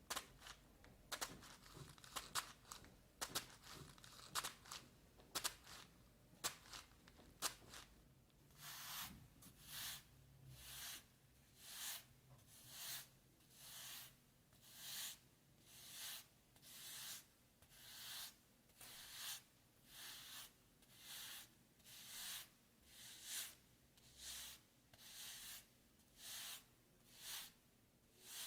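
Homemade foley effects: for the first several seconds, newspaper crackling and crunching in sharp irregular snaps, standing in for footsteps on dry leaves. Then a piece of cardboard brushed in about twenty regular swishes, a little over one a second, imitating a broom sweeping.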